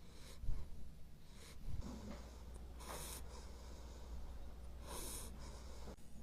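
A sleeping puppy breathing noisily, with a soft snore-like breath about every two seconds.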